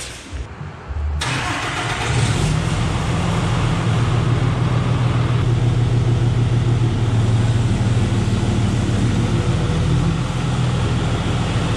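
2014 Ram's 6.7 L Cummins inline-six turbodiesel starting up about a second in, then idling steadily: its first start after a clutch replacement.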